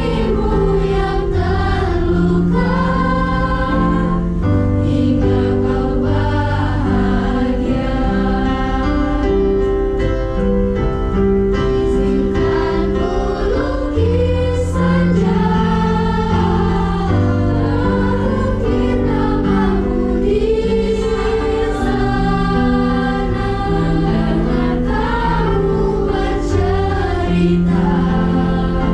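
School-age youth choir singing in parts, accompanied by an electronic keyboard and a guitar playing held low notes.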